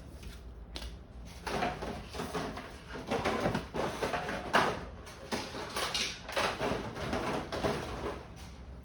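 Cardboard trading-card box and its packaging being handled and rummaged through: a quick run of short rustles and scrapes starting about a second and a half in.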